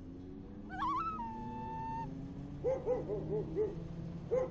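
A dog howling: one wavering howl that settles into a held note about a second in, then a quick run of short yipping howls, about five a second, starting again near the end.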